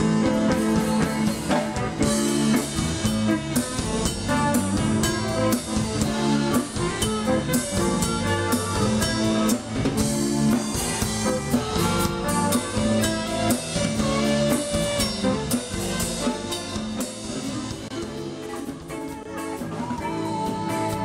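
Live band playing an instrumental passage on drum kit, guitar and saxophone, with a long held note near the end.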